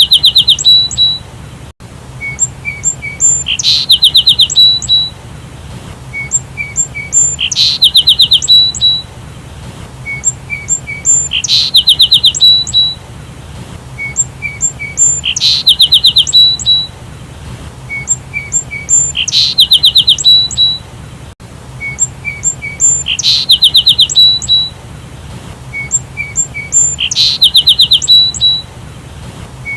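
Sparrow chirping in a looped recording: a few short high chirps, then a quick trill of about eight notes. The same phrase repeats about every four seconds, with a faint steady hum underneath.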